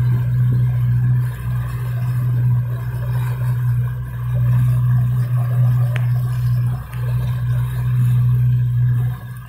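Yamaha 115 outboard motor running steadily at high speed while towing a tube, with a constant low hum under the rush of water and wind.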